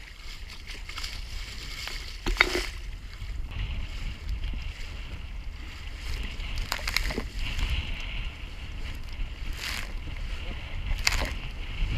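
Waves breaking against the bow of a small wooden sailing dinghy, sending spray over the boat in four short splashes. The loudest comes a little over two seconds in. Under them, wind buffets the microphone with a steady low rumble.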